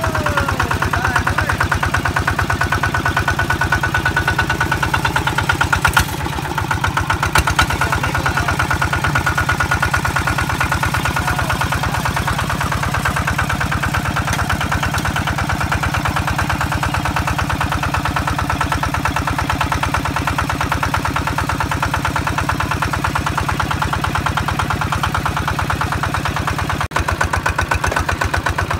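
Engine of a small tracked rice combine harvester running steadily as the machine crawls along on its rubber tracks. Two sharp clicks come about six and seven seconds in.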